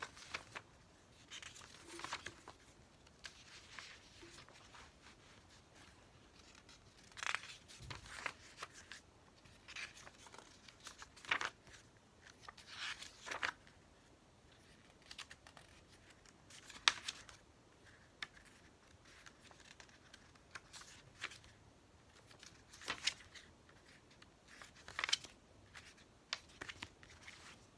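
Pages of a small paper photo book being turned by hand: short papery swishes and flicks, about a dozen spread unevenly, with one sharper flick a little past the middle.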